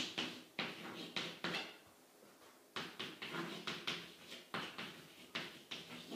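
Chalk writing on a blackboard: a quick run of short scratching strokes and taps, with a pause of about a second about two seconds in.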